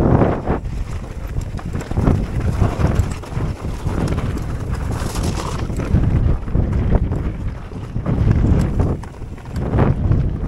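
Mountain bike riding down rocky singletrack: tyres rolling over loose stones and the bike rattling with frequent small knocks, with wind buffeting the microphone.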